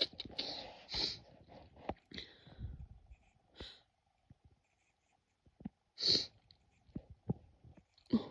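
A woman's single sharp sneeze about six seconds in, after a few seconds of short breaths and sniffs as the sneeze builds.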